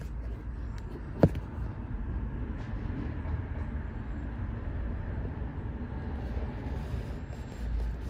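Wind buffeting the phone's microphone: a steady low rumble, with a single sharp click about a second in.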